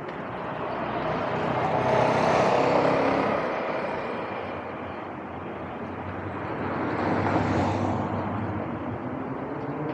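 Two road vehicles passing on the street, each a swell of engine and tyre noise that rises and fades. The first peaks about two to three seconds in and the second about seven seconds in.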